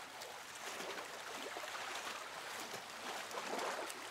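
Water lapping and splashing against a stone canal edge, a steady wash of small splashes that swells slightly near the end.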